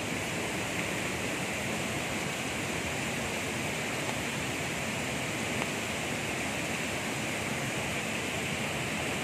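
Typhoon floodwater of a swollen creek rushing over rocks in a steady, even roar of moving water.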